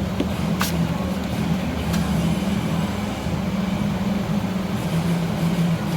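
Steady machine hum with a low pitched drone, with one short sharp click about half a second in.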